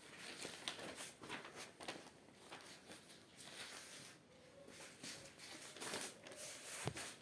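A sheet of printer paper being handled and folded by hand: soft, irregular rustling and creasing, with a louder rustle and a sharp tap near the end as the sheet is flipped over.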